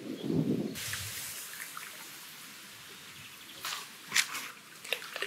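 A low rumbling noise that cuts off abruptly under a second in, then a soft hiss with several sharp drips of water, most of them in the second half.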